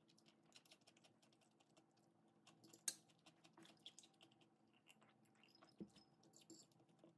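Faint, scattered light clicks and taps, with one sharper click about three seconds in.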